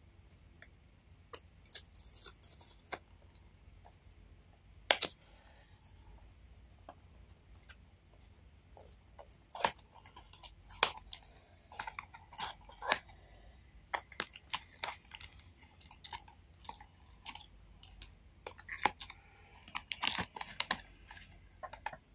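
Small cardboard blind box being opened by hand: irregular sharp clicks, scrapes and paper rustles as the flaps and tabs are pulled open, with a single loud snap about five seconds in and a denser rustle near the end as the card inside is drawn out.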